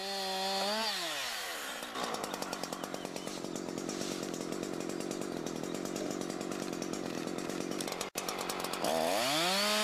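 Husqvarna two-stroke chainsaw at full throttle, easing off about a second in. It then runs slower and rougher for several seconds and revs back up to full speed near the end.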